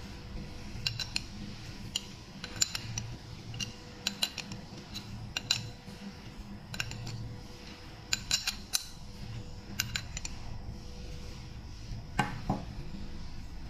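Metal spray-gun spanner clinking and clicking against the spray gun's metal fluid nozzle as it is fitted and tightened, in short clusters of light clicks about a second or two apart, with a louder knock near the end.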